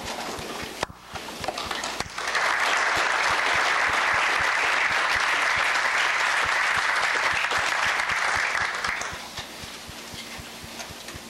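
Audience applauding: a few scattered claps at first, then full applause from about two seconds in, dying away near the end.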